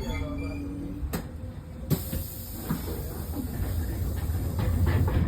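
Tram running, a steady low rumble with a brief whine in the first second and two sharp knocks about a second apart, then a rising hiss.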